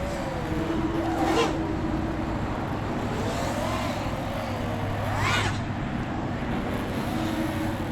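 Nazgul Evoque F5x V2 FPV quadcopter's motors and propellers whining, the pitch climbing sharply with throttle punches about a second in and again about five seconds in, then dropping back to a lower, wavering hum.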